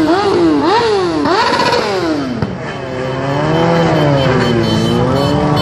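Motorcycle engine revved in quick repeated blips, about four sharp rises and falls in pitch, then after a short drop settling to a lower, steadier run that dips and rises gently.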